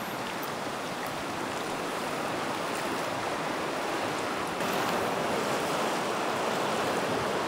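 Fast-flowing river rushing steadily past the bank, a little louder from about halfway through.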